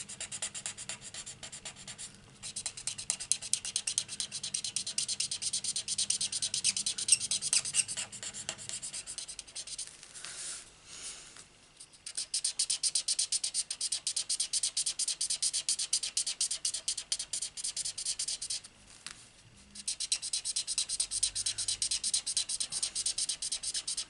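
Felt-tip blending marker (a colour lifter) rubbed back and forth on cardstock in runs of quick scratchy strokes, with short breaks about two, eleven and nineteen seconds in. The marker is blending and lifting alcohol-marker colour on a coloured stamped image.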